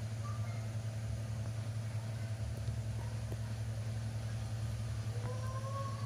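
A baby macaque giving short, thin, rising coos: a brief one at the start, a faint one a little later, and a longer one near the end. Under them runs a steady low machine-like hum, the loudest sound throughout.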